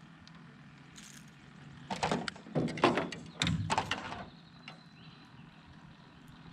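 A cluster of loud knocks and rattles lasting about two seconds, starting about two seconds in, over a faint low hum.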